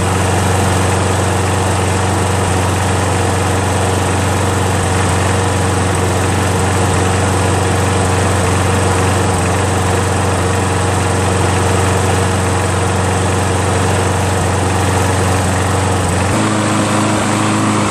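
Briggs & Stratton single-cylinder four-stroke engine on a Toro Recycler lawn mower running steadily at a low speed on its newly fitted auto-choke carburetor. About 16 seconds in, the pitch jumps up as the engine runs faster after its governor spring has been adjusted.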